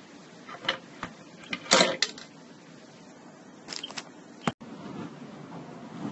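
Handling noise: a few short rustles and knocks as plush toys are moved about against a phone held close, the loudest about two seconds in, then a sharp click about four and a half seconds in where the recording cuts.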